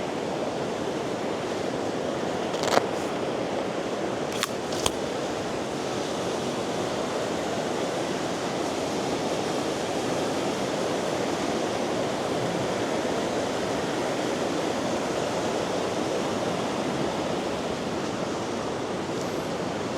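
Steady rushing of river rapids in spate after rain. A few short sharp clicks come about three and about four to five seconds in.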